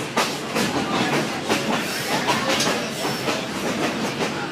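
Passenger train rolling along the track, heard from aboard. A steady rumble carries irregular clicks and clacks of the wheels over the rails.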